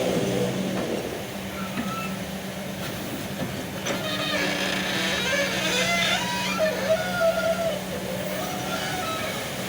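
Kobelco hydraulic excavator working: the engine runs with a steady hum while the hydraulics give wavering whining, squealing tones, loudest in the middle, with a sharp clank about four seconds in.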